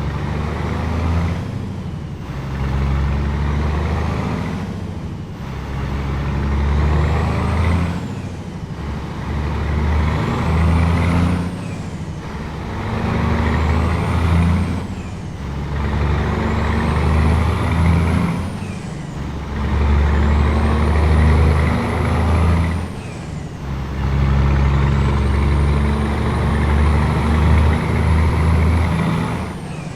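Scania 500S truck's engine with a straight-through exhaust, pulling hard up through the gears: a loud, heavy engine note that breaks off briefly at each upshift, about seven times, every three to four seconds. A high whistle rises and falls within each gear.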